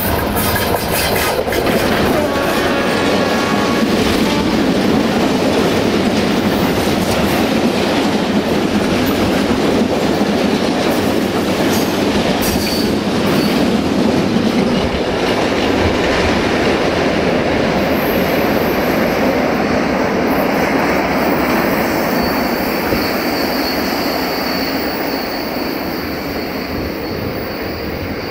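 A Romanian 060-DA (LDE2100) diesel locomotive with its Sulzer 12LDA28 engine runs past close by at the start. A long rake of tank wagons follows, rolling by with wheels clattering over the rail joints. A thin, high wheel squeal joins past the middle, and the rumble fades slightly toward the end as the train draws away.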